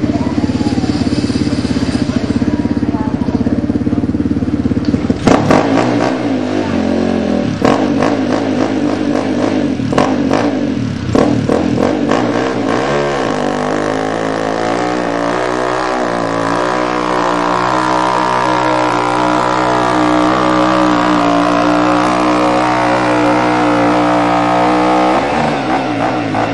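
Two-wheel-drive sport ATV engine running hard while pulling a weight sled, its pitch climbing about twelve seconds in and held high before it drops back near the end. Several sharp knocks sound in the first half.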